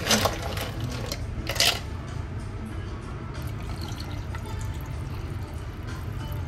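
Ice cubes scooped from a steel bin and dropped into a tumbler: two short rattles about a second and a half apart. Then tap water runs steadily into the glass, filling it.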